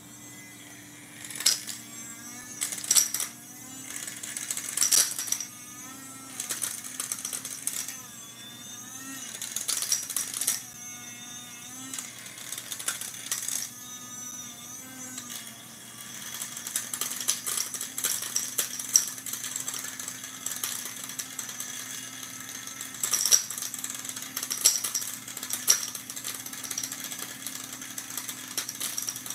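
Electric tobacco grinder grinding chalk: its small motor hums steadily while chalk pieces rattle and click irregularly inside the clear chamber.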